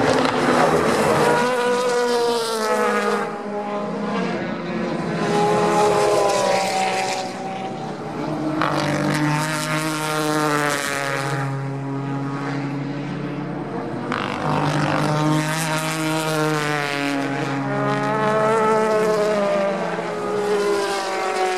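Endurance race cars, prototypes and GT cars including a Ford GT, pass at speed one after another, about five in all. Each engine note swells, bends in pitch as the car accelerates and goes by, then fades.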